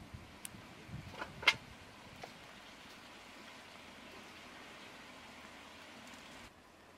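A sharp click about a second and a half in, then a steady hiss of fish pieces sizzling in a large wok over a wood fire as liquid splashes onto them, cutting off suddenly near the end.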